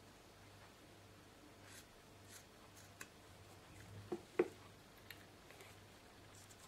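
Small craft scissors snipping excess leather in a few faint cuts, then two knocks about four seconds in as the scissors are set down on the cutting mat.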